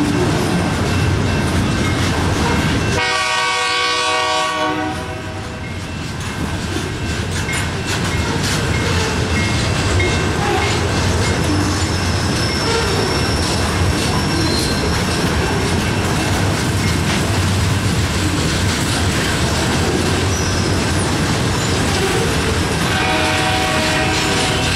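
Loaded rail train rolling past, with the steady rumble of the locomotives and the flatcars of welded rail on the track. A train horn sounds for about two seconds, some three seconds in, and again near the end.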